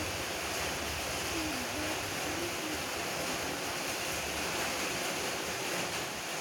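Steady rushing noise, like wind on the microphone or nearby running water, with a faint wavering low tone in the first three seconds.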